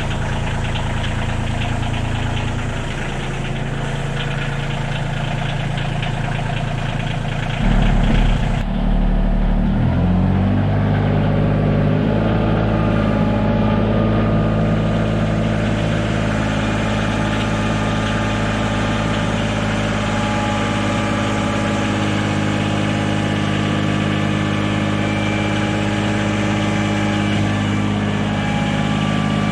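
A small tractor's engine runs steadily. About eight seconds in it picks up speed with a brief jump in loudness, then holds steady at the higher speed.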